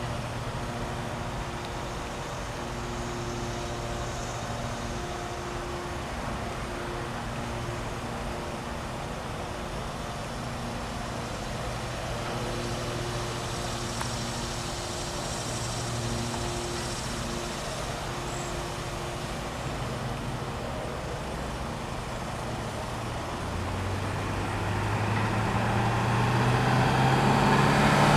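Steady rumble of a passing freight train with a diesel engine drone that comes and goes, growing louder over the last few seconds as a heavier engine sound rises in pitch.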